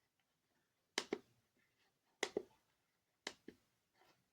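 Buttons on a Bosch Hammer handheld diagnostic tester being pressed to step through its menus: three sharp double clicks, press and release, about a second apart, then a fainter one.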